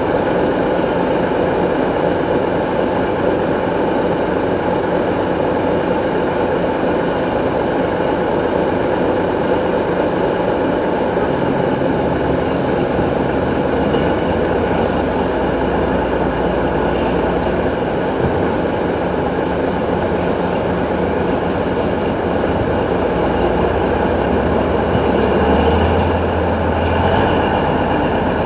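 Heavy diesel earthmoving machine running steadily under load, with a deep low rumble that swells in the second half and is strongest near the end, and a rattling mechanical clatter over it.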